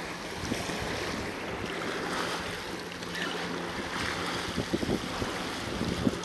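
Small waves washing and sloshing against sandstone rocks at the water's edge, with wind buffeting the microphone.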